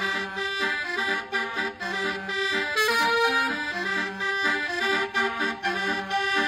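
Multi-tone telolet air horn playing a melody, with reedy notes changing every fraction of a second over a lower line of notes.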